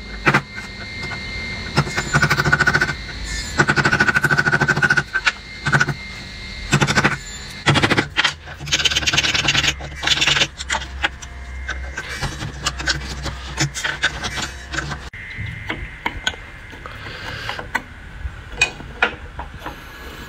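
Wood chisel cutting a mortise in hardwood: repeated sharp knocks as the chisel is struck and chops into the wood, with stretches of scraping as waste is pared and levered out of the recess.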